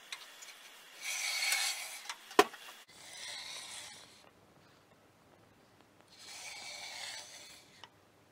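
Betterley Una-Gauge sliding in the table saw's miter slot across the cast-iron top: three scraping passes of about a second each, with one sharp knock just after the first.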